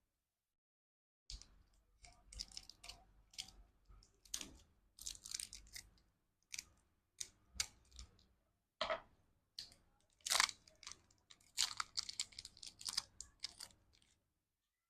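Close-miked crunching and crinkling of Kinder Joy and lollipop candy and their wrappers: irregular sharp crackles, starting about a second in, loudest about ten seconds in, and stopping just before the end.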